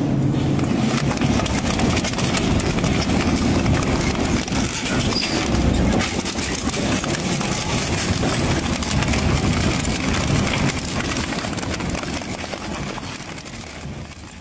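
Twin-shaft industrial shredder grinding up a motor scooter: a steady motor drone under dense crunching and cracking of plastic body panels and metal parts being torn between the cutter discs. It fades out near the end.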